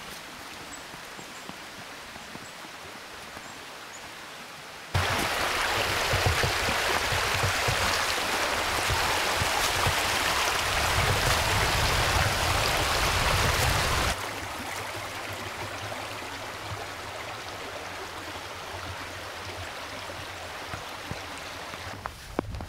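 Running water of a creek, a steady rushing with no other clear sound. It jumps suddenly much louder about five seconds in, then drops back suddenly about nine seconds later.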